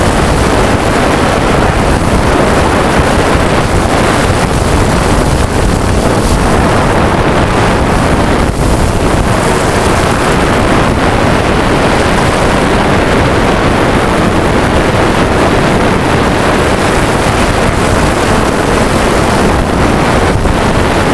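Steady, loud rush of a quadcopter drone's spinning propellers and the wind over its onboard camera's microphone.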